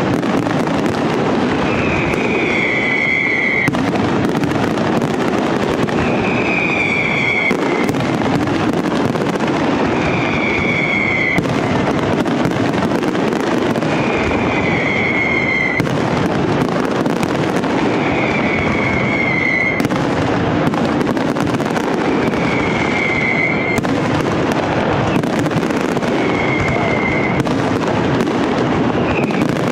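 Aerial fireworks display: a dense, steady crackling and popping of shell bursts and crackling stars. A high falling whistle comes back about every four seconds.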